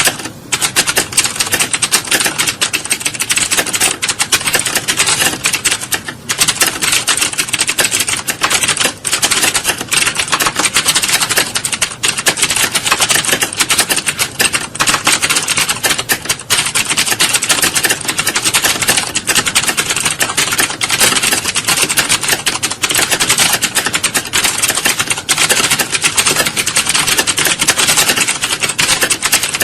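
Many computer keyboards being typed on at once, a dense, unbroken clatter of overlapping keystrokes like a full typing-test hall.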